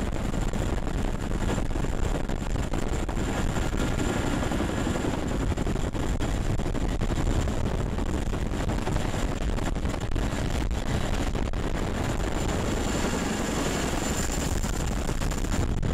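Boeing CH-47 Chinook hovering low overhead, its tandem rotors and engines running in a loud, steady roar, with a thin high whine over it.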